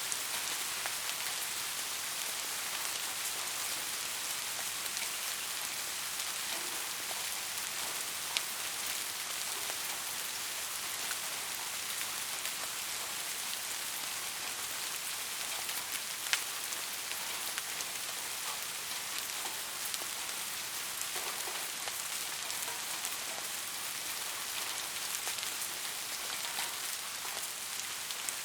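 Steady rain falling on hard surfaces, an even hiss with the occasional sharper drop tick.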